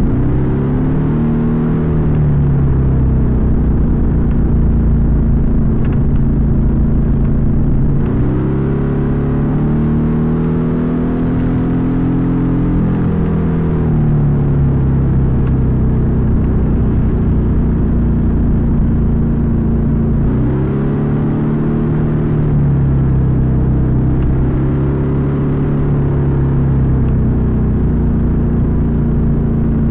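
Suzuki Skydrive 125 scooter's carburetted single-cylinder engine and intake, picked up at the air filter box while riding. The engine speed climbs three times, at the start, about 8 s in and about 20 s in, each time easing back down slowly. It is recorded to check for the growl ('ngorok') that the owner blames on the filter box restricting the carburettor's intake.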